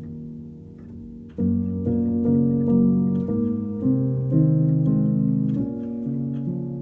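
Instrumental background music of sustained pitched notes, getting louder about a second and a half in.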